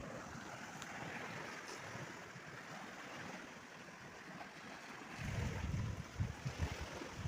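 Strong wind blowing over a river, with a steady rush of wind and water. From about five seconds in, gusts buffet the microphone with low rumbling thumps.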